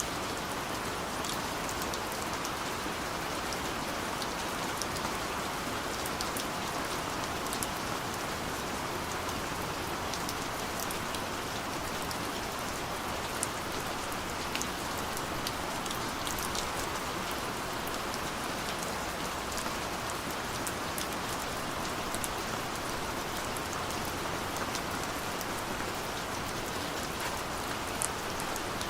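Steady rain falling on a surface, an even hiss with scattered sharp drop ticks.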